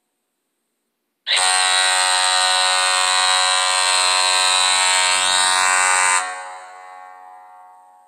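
San Jose Sharks arena goal horn: one long, loud, steady blast that starts abruptly about a second in, holds for about five seconds, then cuts back and fades out.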